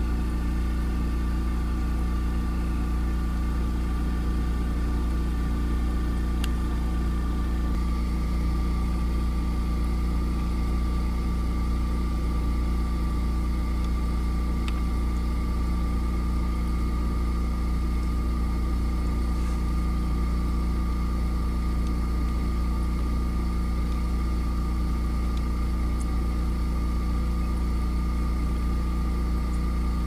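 Steady mechanical drone of a running motor: an even low hum with a couple of thin, steady whining tones above it, unchanging throughout.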